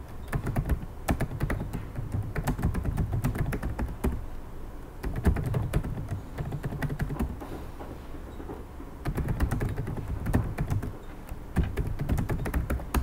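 Typing on a computer keyboard: quick runs of key clicks in four bursts with short pauses between, as terminal commands and a password are keyed in.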